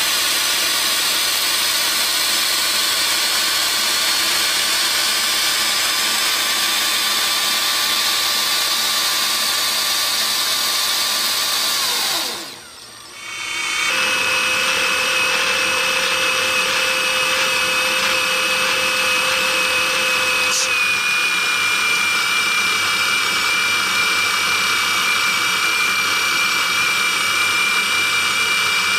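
Small electric motor running with a steady high whine. About twelve seconds in it winds down, falling in pitch, and after about a second it starts up again with a higher, steady whine.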